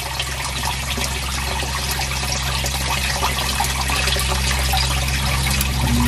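Water trickling and pouring into a footer-drain sump basin, which is refilling while its pump is off. Just before the end the Zoeller submersible sump pump switches on and a steady hum starts.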